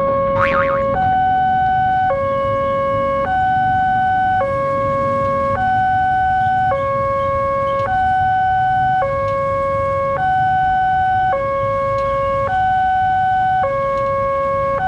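Railway level-crossing warning alarm sounding as the barrier comes down: an electronic two-tone signal alternating between a lower and a higher tone, each held about a second, warning of an approaching train.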